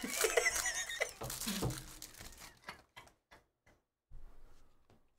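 A foil trading-card pack wrapper crinkling as it is peeled open, for about two and a half seconds. After that come a few faint clicks and taps as the stack of cards is handled.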